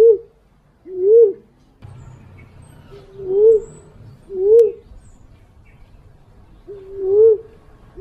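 Female fruit dove (walik) cooing, played as a lure call to draw in males: a series of low hooting coos, each rising then dipping in pitch, about five in eight seconds with uneven gaps.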